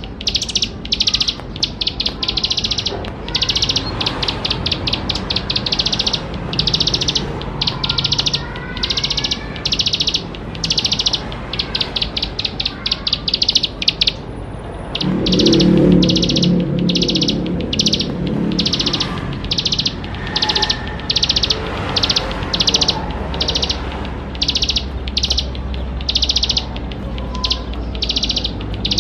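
Plain prinia (ciblek sawah) singing a long run of short, rapid, buzzy trilled phrases, about two a second, with one brief pause about halfway through. A lower, duller sound comes in just after the pause, and faint gliding whistles run underneath.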